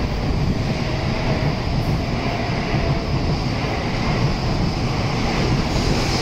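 Tokaido Shinkansen bullet train pulling out of the station past the platform: a steady rumble of wheels on rail and the running noise of the passing cars.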